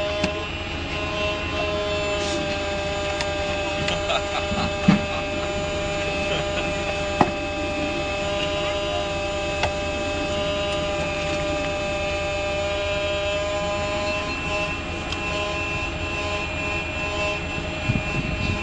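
Steady multi-tone electric whine of radio-controlled model construction machinery, the hydraulic pump and drive motors, as a model tracked excavator drives down a hook-lift truck's ramp and works its boom. Three sharp knocks come in the middle.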